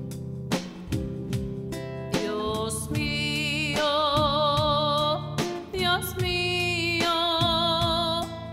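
A woman singing with vibrato and long held notes over a strummed acoustic guitar. The guitar is heard alone for about the first two seconds before the voice comes in.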